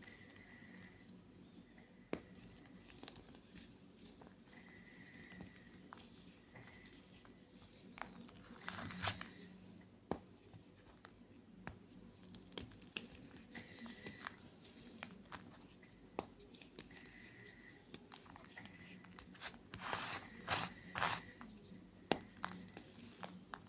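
White gym chalk being crushed: faint crunching and crumbling with scattered small clicks, a louder crunch about nine seconds in and a cluster of louder crunches near the end.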